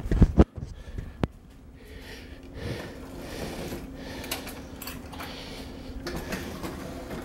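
Kitchen cutlery drawer pulled open and metal cutlery clinking and rattling in it, with a couple of loud knocks at the start and a sharp click about a second in.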